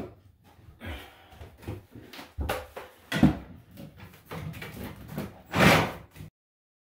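Irregular knocks and clunks of a cordless power tool being handled and set down on a plywood subfloor, with the motor not running. The sound cuts off suddenly near the end.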